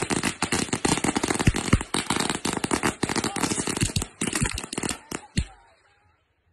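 A string of firecrackers going off: many rapid, sharp pops in a dense, irregular run that stops suddenly about five and a half seconds in.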